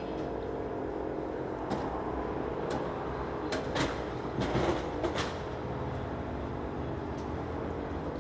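Fire truck engine idling steadily, with several short knocks and clunks, most of them a little before halfway.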